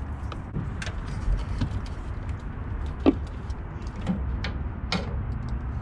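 Scattered knocks and taps as a catfish is swung aboard and flops on the boat's aluminium deck, with the sharpest knock about three seconds in, over a steady low rumble.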